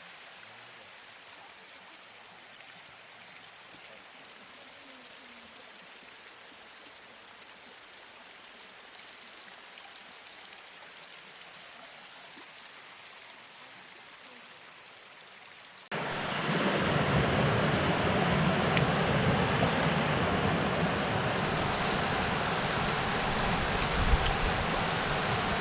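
Rushing water of a creek waterfall: a faint, steady rush that cuts abruptly, about two-thirds of the way through, to a much louder and fuller roar of falling water.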